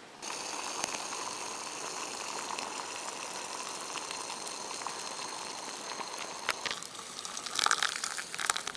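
Water boiling in a small camping pot, a steady bubbling hiss. About seven seconds in it gives way to an uneven crackle with brief splashy clicks.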